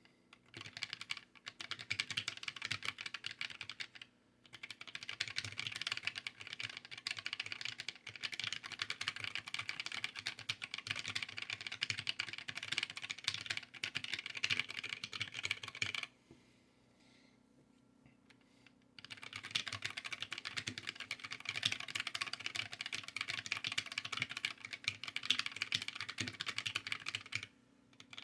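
Fast continuous typing on a small handwired mechanical keyboard: a dense clatter of keystrokes that stops for about three seconds a little past halfway, then starts again.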